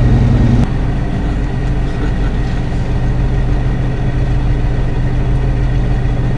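Heavy truck engine running with a steady low drone. About two thirds of a second in, the note eases and the level drops slightly.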